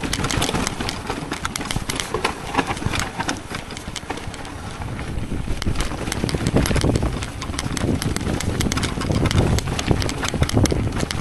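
Mountain bike rolling down a rocky trail: tyres crunching over stone and loose gravel, with many irregular clicks and rattles from the bike, over a low rumble of wind on the microphone.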